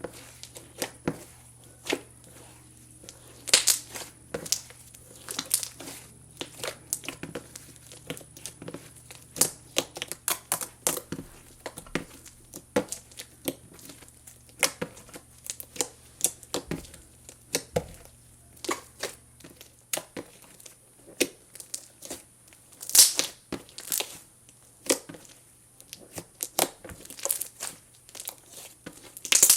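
Thick glue-and-cornstarch slime being stirred and worked as it is activated: a run of irregular sticky clicks, pops and crackles.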